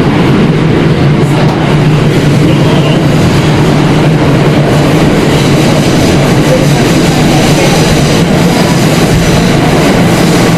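Kawasaki R160B subway car running at speed through a tunnel, heard from inside the car. A loud, steady rumble of wheels on rail with a low hum underneath.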